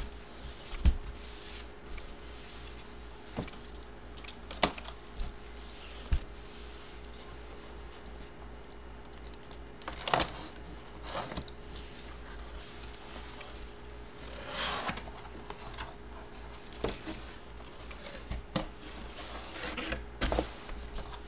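Handling noise from a cardboard box and plastic-sleeved photo sheets: scattered soft knocks and taps, with rustling about ten seconds in and again near the end, over a faint steady hum.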